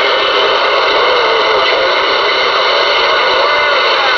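CB radio receiver putting out loud, steady static and band noise through its speaker while listening on channel 19, a lot of noise on the band, with faint wavering traces of a weak signal buried in it.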